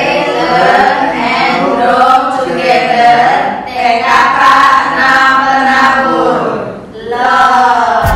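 A small group of adult voices singing together, with a brief break about seven seconds in.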